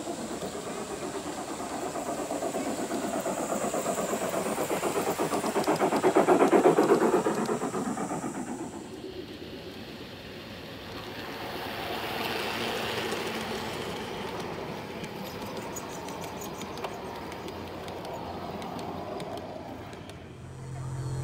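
Aristo-Craft large-scale model passenger train (ALCO PA diesels with streamlined cars) rolling past on garden-railway track: a rapid clicking of wheels over the rail and a rumble that swell to a peak about six or seven seconds in and then die away. A softer second pass follows a few seconds later.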